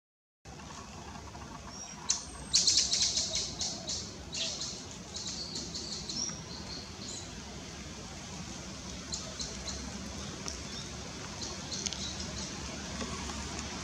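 Birds chirping: a quick run of short, high chirps about two to five seconds in, then a few scattered single chirps, over a steady low background hum.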